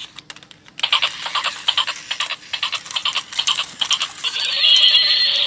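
Battery-operated walking toy horse switched on: its plastic gear mechanism and legs clatter rapidly on pavement. About four seconds in, a tinny, warbling electronic sound effect from its small speaker starts up over the clatter.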